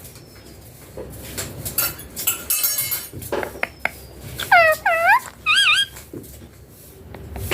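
Indian ringneck parrot calling: two swooping whistled calls about four and a half seconds in, followed by a shorter wavering one. Earlier there are light clicks and a brief metallic rattle.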